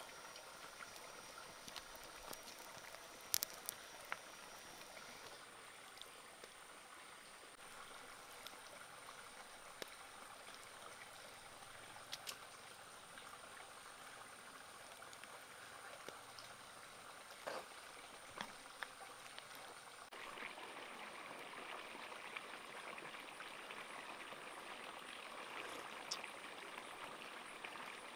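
Broth with snake pieces and chilies boiling in a wok: a faint, steady bubbling with scattered small pops, a little louder for the last third.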